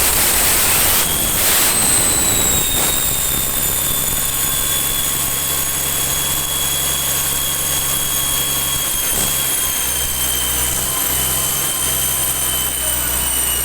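Yanmar engine running on a test run, with a steady low hum and a high whine. The whine rises in pitch about a second in, then slowly drops through the rest of the run.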